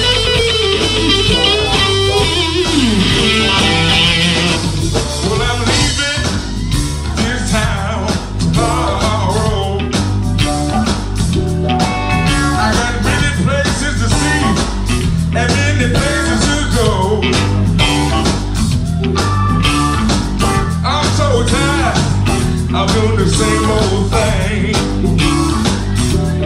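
A live electric blues band plays: lead electric guitar with bent notes over bass and drums, then a man singing over the band.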